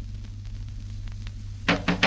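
A low steady hum with faint scattered clicks in a quiet gap of the record. About 1.7 s in, loud drum strokes begin.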